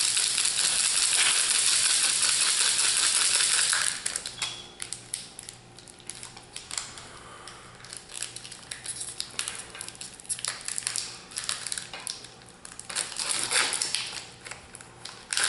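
Clear plastic wrapper crinkled hard for about four seconds, then softer scattered crackling and rustling as a foil booster pack wrapper is torn open and the cards are slid out.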